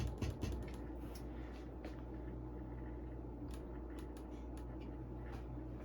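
Light clicks of a tool tapping on a powered CRT monitor's circuit board, quick and close together at first, then scattered single taps, over a steady low hum. Tapping like this probes for an intermittent fault, here traced to cracked solder joints on the board.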